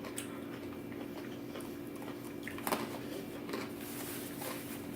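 A person chewing food close to the microphone, with a few soft mouth clicks over a faint steady hum.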